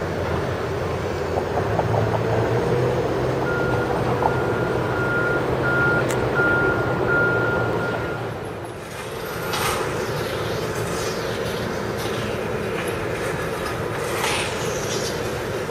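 A work vehicle's reversing alarm beeping at one steady pitch, about six beeps starting a few seconds in and stopping after about four seconds, over a diesel engine running. In the second half, a couple of brief hissing swells rise over the traffic noise.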